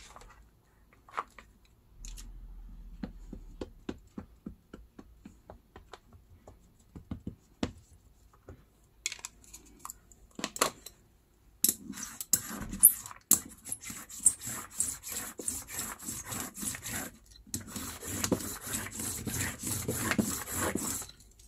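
Ink pad tapped and rubbed against a silicone baking tray: scattered light taps and clicks at first, then, from about halfway, a fast, continuous run of dabbing and rubbing.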